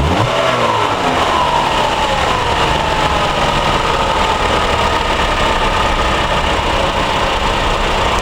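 2013 Chevrolet Malibu's four-cylinder engine running through its stock exhaust. The revs fall back from a blip over the first two or three seconds, then it idles steadily.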